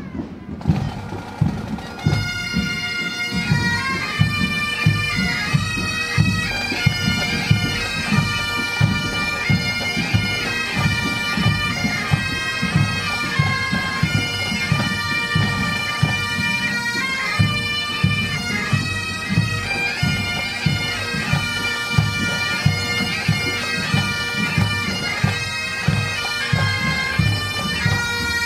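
Pipe band playing on the march: snare and bass drums beat first, then about two seconds in the Highland bagpipes strike in with a tune over their steady drone, the drums keeping a regular beat underneath.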